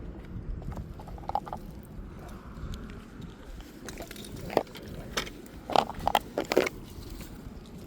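Scattered short clicks and light knocks of close-up handling, clustered in the second half, with a brief faint hiss about two seconds in.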